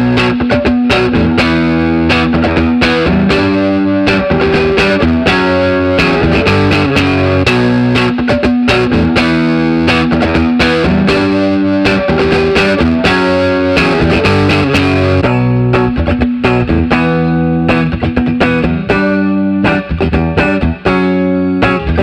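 Electric guitar played through the Seam Ripper, an analog three-band parallel overdrive and distortion pedal, giving a saturated, distorted tone. Picked chords and riffs with many sharp attacks and held notes, at a steady high level.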